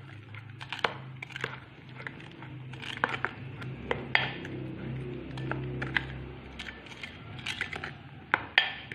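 A spoon stirring pancake batter of flour, water and egg in a glass bowl, giving irregular clicks and taps against the glass, over a low steady hum.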